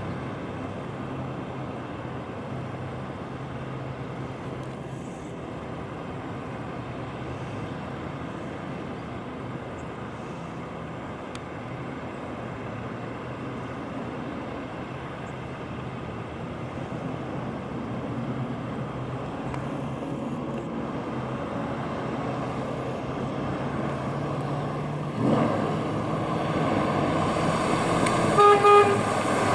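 1967 Chevrolet Chevelle SS's V8 engine running as the car drives off and comes back, growing louder as it approaches, with a rise in level about 25 seconds in. Near the end the car's horn sounds two short honks.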